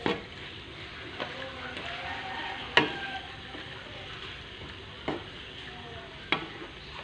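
Wooden spatula stirring marinated chicken pieces and vegetables in a frying pan, over a steady sizzle. The spatula knocks against the pan about five times, loudest about three seconds in.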